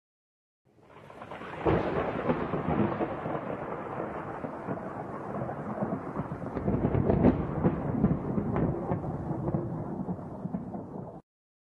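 Thunder: a sound effect that fades in, breaks into a sharp crack about two seconds in, then keeps rumbling with scattered crackles and swells again midway before cutting off abruptly near the end.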